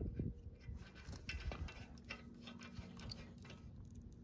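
Faint, scattered metallic clicks and taps of lug nuts and tools being handled at a car wheel during a tire change, with a faint steady low hum in the second half.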